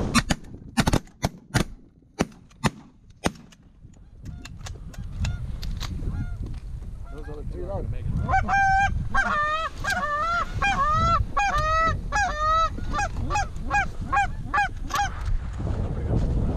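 A quick run of sharp cracks in the first three seconds. Then, from about eight seconds in, a fast series of Canada goose honks and clucks, each call bending up and down, which stops about fifteen seconds in.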